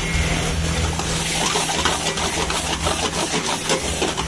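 Paneer bhurji sizzling in a black frying pan over a high gas flame, with a steel ladle stirring and scraping it against the pan in quick, repeated strokes from about a second and a half in. A steady low hum runs underneath.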